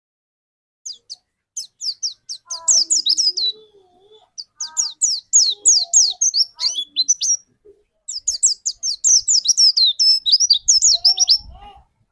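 White-eye (pleci) singing in three bursts of rapid, high, falling chirps, the fast volleys ('tembakan') that pleci keepers work for, with softer, lower gliding notes beneath them.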